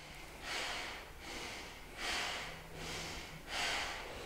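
Bhastrika (bellows breath) in yoga: forceful, rapid breaths in and out through the nose. A strong breath comes about every one and a half seconds, with softer ones in between.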